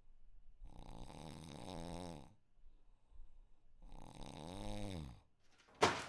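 A man snoring: two long snores about three seconds apart, each rising then falling in pitch. A sudden loud knock comes near the end.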